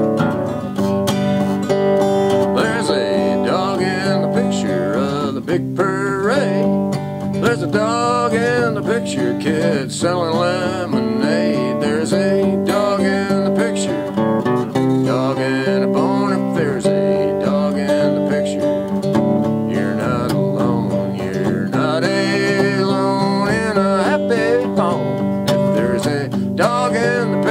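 Gibson flat-top acoustic guitar strummed and picked steadily, with a wavering melody line over it.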